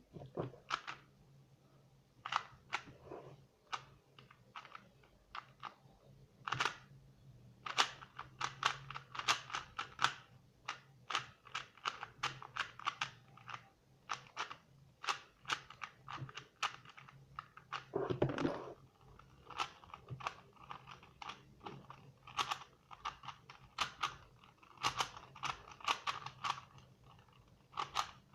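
Rubik's cubes being turned fast during a speedsolve: plastic layers clicking and clacking in quick, irregular runs with short pauses, and a longer scrape about eighteen seconds in.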